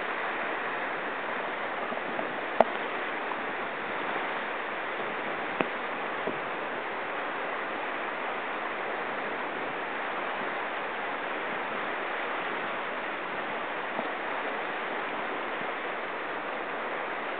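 Steady rush of whitewater in a river rapid. A sharp click sounds about two and a half seconds in, and a smaller one about three seconds later.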